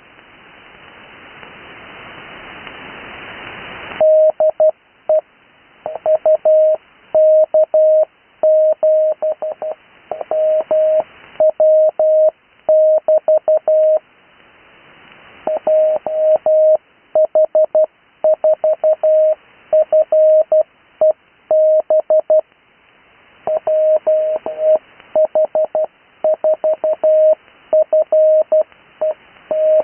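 HF radio receiver hissing with band noise for about four seconds, then Morse code on the 80 m band: a single steady beep keyed in dots and dashes. It is amateur call signs sent at 12 words a minute in standard spacing, not Farnsworth, in groups with short pauses between them.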